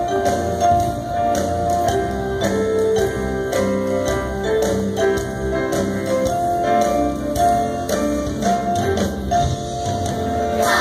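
Instrumental music: a melody of short held notes over a light, steady percussion beat.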